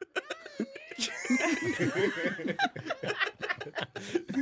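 A small group of people laughing together in short, repeated chuckles and snickers, overlapping one another. It starts about a second in, after a brief high-pitched voice.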